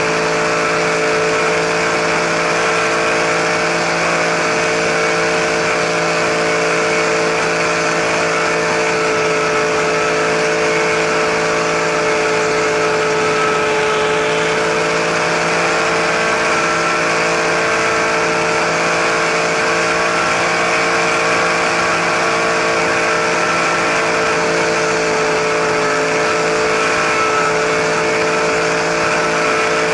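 Radio-controlled helicopter's motor and rotor running steadily in flight, heard up close from a camera mounted on the helicopter: a constant drone with a slight waver in pitch.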